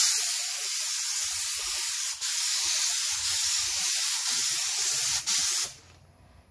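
Gravity-feed paint spray gun spraying clear coat: a steady, loud hiss of air and atomised finish that starts abruptly, breaks off briefly twice, and stops about a second before the end.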